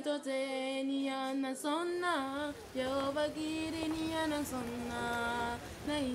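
A single voice singing slow, long held notes with little or no accompaniment; a low background noise joins about two seconds in.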